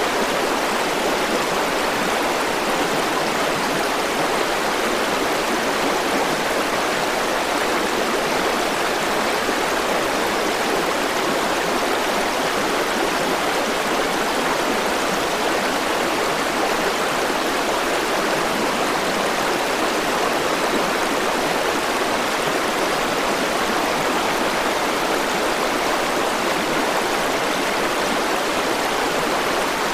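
River water running steadily over stones, a constant rushing and gurgling flow.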